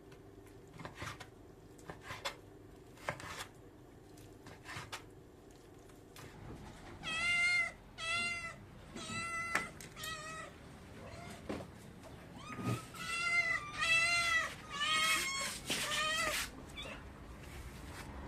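Street cat meowing, a run of about nine meows starting about seven seconds in, some bending in pitch. A few sharp clicks come before them.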